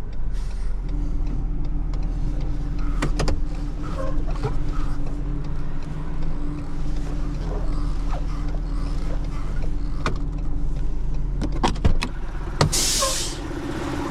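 Tow truck running with a steady low drone and a hum, with a few sharp clicks and knocks, and a short burst of hiss near the end.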